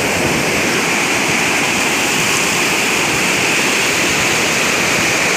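Fast floodwater rushing beneath a concrete bridge, a steady loud rush of water.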